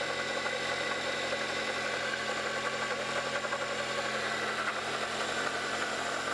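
Toyota 1ZZ-FE 1.8 L four-cylinder engine idling steadily with a fast rattling, knocking noise from the right side of the engine bay. The knock was traced to failing bearings in the belt-driven water pump.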